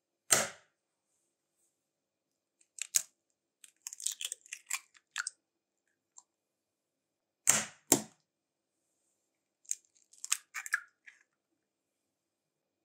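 Two eggs cracked one after the other into a glass mixing bowl. Each starts with sharp knocks of the shell against the bowl (once, then twice a few seconds later), followed by a short spell of crackling as the shell is pulled apart and the egg drops in.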